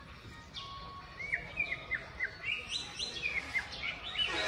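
Small birds chirping: short, quick, repeated chirps that come thicker and louder from about a second in.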